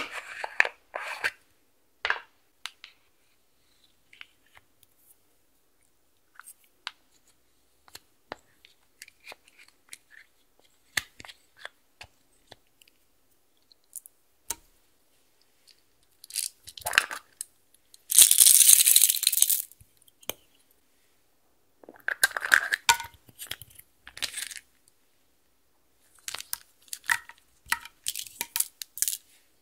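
Slime-mixing ASMR: small plastic containers clicking open and scattered taps of small items dropped into a glass dish of clear slime. About halfway through comes a loud rattling pour of about two seconds, small pieces such as gel beads tipped into the glass dish.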